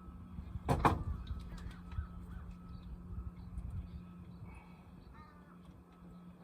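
A sharp knock about a second in, over a steady low hum, with a short bird call near five seconds.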